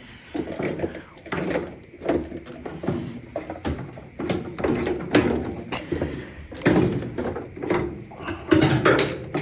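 Irregular knocks, clunks and scraping as a Samsung washer's metal suspension rod is forced into its hook against the tub and cabinet.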